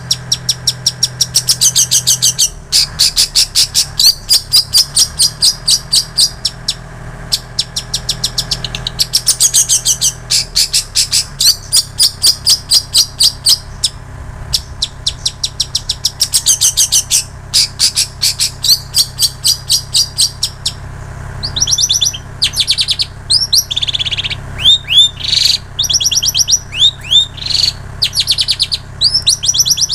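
A long-tailed shrike singing a song filled with mimicked plain prinia and canary phrases: fast trains of high chattering notes with short pauses. From about two-thirds of the way in these turn into quick down-slurred notes. A low steady hum lies underneath.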